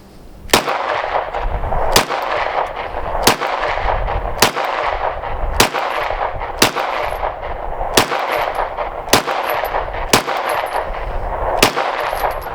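Ten single shots from a Palmetto State Armory Dagger 9mm pistol, fired steadily about one a second. It is a magazine test for double feeds, and every round fires without a stoppage.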